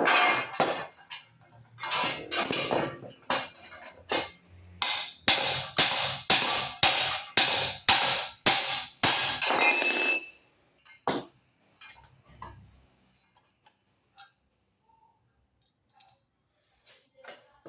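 Hammer blows on metal, evenly paced at about two a second, stopping about ten seconds in; after them come only a few scattered light knocks.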